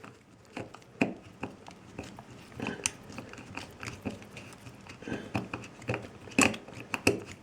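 Gerber Bear Grylls multitool screwdriver turning a screw out by hand: irregular small clicks and gritty scrapes of the bit working in the screw head, the loudest click about six and a half seconds in.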